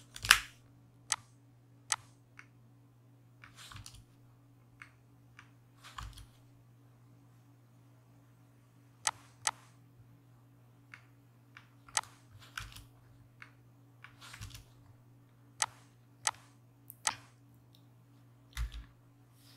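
Computer mouse clicks and keyboard key presses, sharp and irregularly spaced, over a faint steady low hum.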